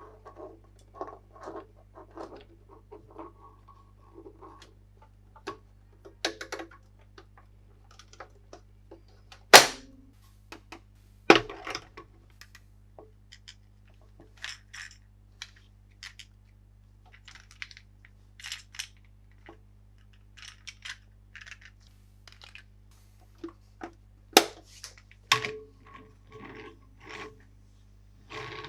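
Hands unpacking and handling a plastic toy: scattered small clicks, taps and rustles of packaging, with three sharp snaps, two close together about ten seconds in and one near the end.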